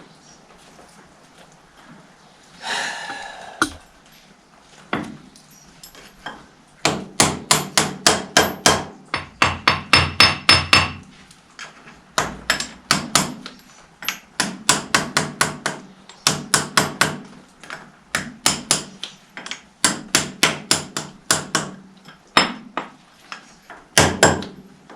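Hammer blows driving the 1955 Fordson Major's bull pinion and bearing assembly into the rear axle housing until it sits flush. Sharp metallic strikes come in quick runs of several a second from about seven seconds in, with short pauses between runs. A brief scraping sound comes about three seconds in.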